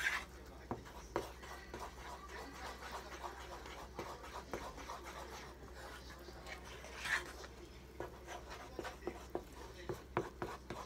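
Wooden spatula stirring thick pancake batter in an aluminium saucepan, with irregular light taps and clicks against the metal and a couple of louder scrapes, one about halfway through. The batter is still lumpy with pancake mix being broken up.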